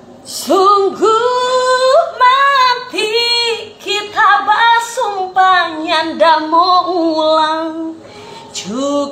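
A woman singing a slow Manado-Malay ballad without accompaniment, holding long, wavering notes; she comes in about half a second in.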